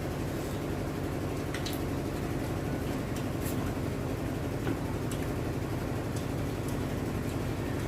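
A steady low rumble of room background noise, with a few faint clicks from eating fish and rice by hand.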